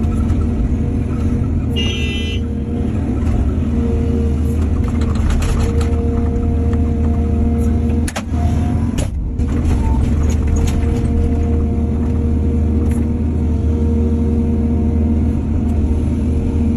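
Heavy diesel engine of construction machinery running steadily with a deep rumble. There is a brief high-pitched squeal about two seconds in and a sharp knock about halfway through.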